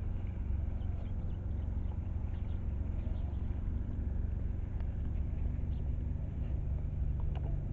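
Baby stroller's wheels rolling over a rough outdoor path, a steady low rumble with faint scattered clicks.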